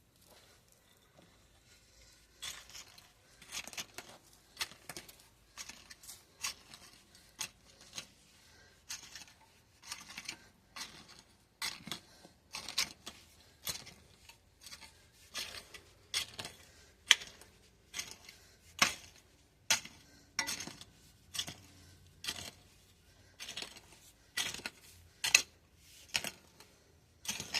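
Digging through dry garden soil to search for potatoes: a long run of short, crisp scrapes and crunches, roughly one or two a second, starting about two seconds in.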